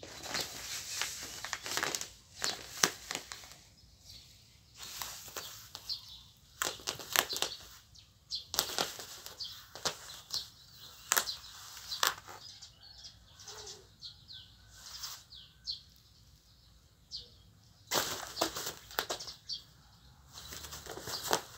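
Cats playing on a folded cloth floor mat: their claws scratching and scrabbling at the fabric in quick, irregular rustles and scrapes, with short pauses between flurries.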